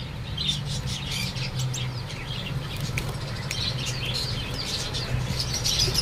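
Small cage birds chirping and fluttering in a wire cage: many short, high chirps scattered throughout, over a steady low hum.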